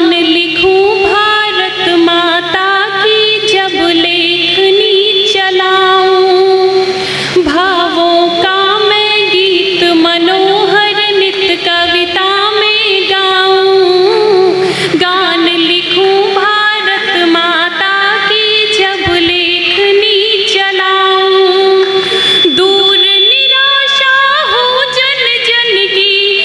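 A woman singing solo into a stage microphone. She holds long notes that waver and bend in pitch, phrase after phrase.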